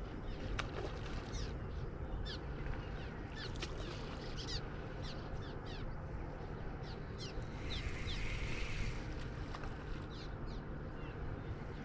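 Birds chirping: many short, high, falling chirps scattered throughout, over a steady low background rumble.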